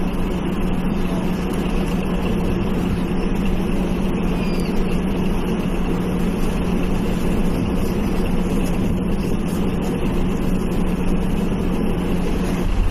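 Steady hiss with a low hum from an RS-25 rocket engine test stand during the automatic start sequence, before ignition. Right at the end the engine starts to ignite and the sound grows louder.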